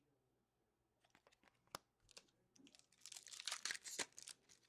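Foil trading-card pack wrapper and cards being handled: crinkling and rustling with light clicks, starting about a second in and busiest near the end.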